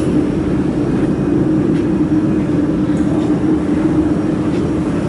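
Steady hum and whir of a laser welding machine and its cooling equipment running just after being powered on.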